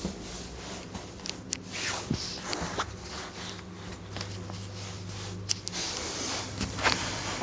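Rustling and scattered sharp clicks from handling, clothing or the recording phone, over a steady low hum.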